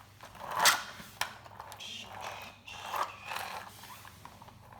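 Mechanical clicking and scraping from objects being handled, with a short loud swish about half a second in.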